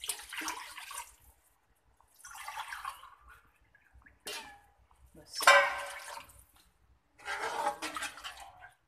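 Water poured into a metal cooking pot of spiced masala and oil in several short, splashing pours, the loudest about halfway through.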